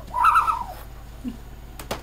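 A hooting, owl-like call, one arching hoot in the first second, then a sharp click near the end.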